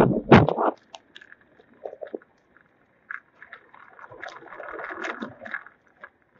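Handling noise on a phone's microphone: a few loud bumps and rubs at the start, then scattered clicks and a stretch of rustling about four seconds in.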